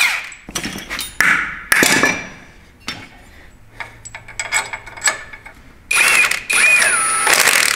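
Cordless impact wrench running on the front suspension's spindle and ball-joint nut: two short bursts, then a longer burst of about a second and a half near the end, its whine dropping in pitch as it hammers. Light metal clinks of tools are heard between the bursts.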